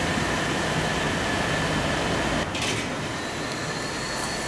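Steady mechanical whirring with a thin high-pitched whine running through it, with a brief rustle about halfway through.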